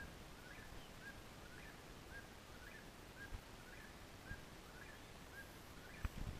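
Eastern whip-poor-will singing faintly, its song phrase repeated about once a second, six times over.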